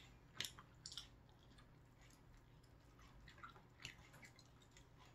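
Faint chewing and wet mouth sounds of string cheese being bitten and eaten, with a few soft clicks and smacks scattered through.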